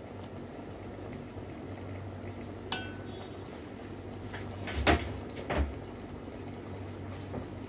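A metal utensil clinking and knocking against an aluminium cooking pot as drained parboiled rice is spooned in as a layer over the meat. There is one short ringing clink near 3 s and two heavier knocks around 5 s, over a steady low hum.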